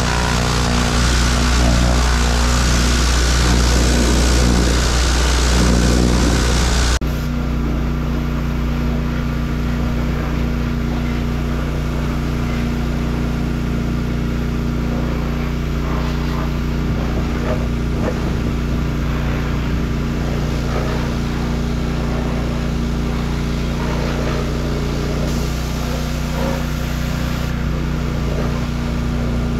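Gas pressure washer engine running steadily with the hiss of its water spray. About seven seconds in, the hiss cuts off abruptly and the engine runs on at a steadier, slightly lower level.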